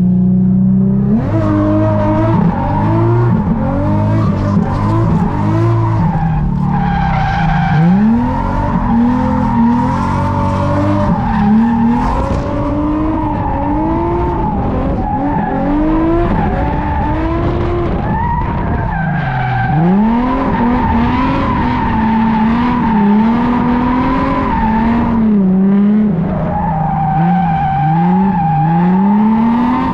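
Nissan 350Z's V6 engine revving up and dropping back over and over while drifting, with the rear tires squealing in a steady high note through the long slides.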